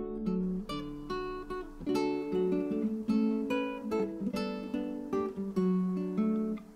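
Background music: acoustic guitar playing a run of plucked and strummed notes.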